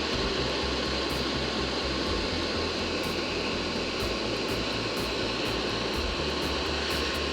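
Hot air gun of a soldering station blowing steadily with its fan at maximum, a continuous even rush of air, as it heats a circuit board to lift components off.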